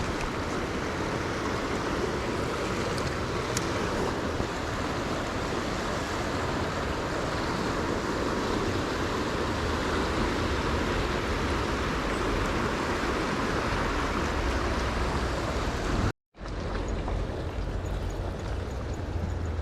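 Steady rush of a flowing river, an even noise at a constant level. It breaks off for a moment about sixteen seconds in, then carries on with a little more low rumble.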